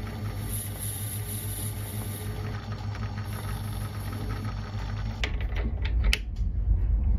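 Metal lathe running steadily while turning a brass workpiece. A few sharp metallic clicks come about five and six seconds in.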